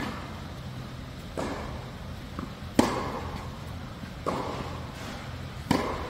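Tennis rally: rackets striking the ball back and forth, five hits about a second and a half apart, each echoing in a large indoor hall over a steady low hum.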